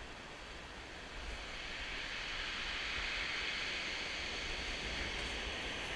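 Surf breaking and washing up a shingle beach, a steady hiss that swells about a second in as a wave runs up the stones. Wind buffets the microphone with a low rumble underneath.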